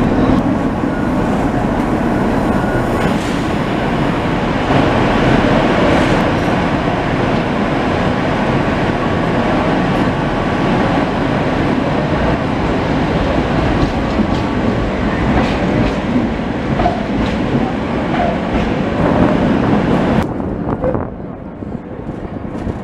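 Vintage Tatra T2 tram running along its rails, heard from aboard with the steady noise of wheels and running gear, inside a tunnel. It drops quieter about twenty seconds in.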